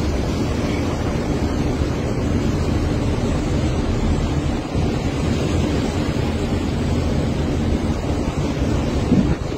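Steady low rumbling noise of wind buffeting the microphone over the sea, with no distinct blasts from the eruption.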